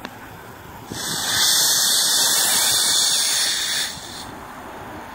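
Steam and boiler water blasting out of a small wood-fired fire-tube boiler's hand-opened blowdown valve: a loud hiss that starts about a second in and stops near four seconds. It is the boiler being blown down to clear sediment from the bottom.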